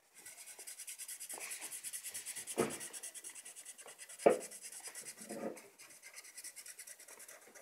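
Felt-tip marker scribbling on paper, quick even back-and-forth strokes at about seven a second as an area is filled in with colour, with two soft knocks of the pen or hand against the page.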